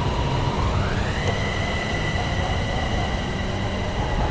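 Electric Airport Rail Link commuter train pulling out of the station. Its traction motors whine, and the whine rises in pitch about a second in as the train gathers speed, then holds steady over the low rumble of the running train.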